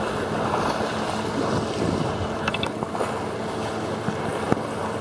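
Wind buffeting the microphone over sea waves washing against the concrete tetrapods of a breakwater. A few small clicks come about halfway through, and a single sharp tap near the end.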